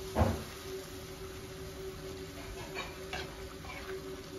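Perforated metal spoon knocking and scraping against a black iron karahi while stirring a thick simmering tomato masala: one loud knock about a quarter second in, then a few lighter clicks and scrapes a little before the end.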